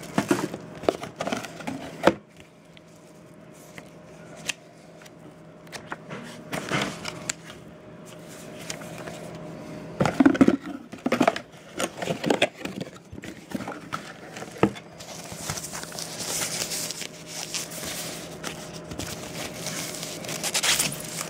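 Cardboard box and plastic packaging handled by hand: scattered taps, scrapes and rustles, with louder clusters about two seconds in and at about ten seconds. Later comes a longer run of crinkling as the device's foam and plastic wrapping is handled.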